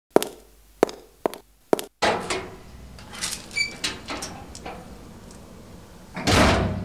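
Four sharp knocks in the first two seconds, then a steady outdoor street background with scattered clicks, and a loud rush of noise about six seconds in.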